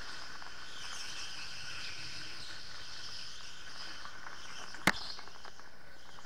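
Electric go-kart's motor whining at a high pitch, the tone drifting slightly as the kart speeds up and slows, with one sharp knock about five seconds in.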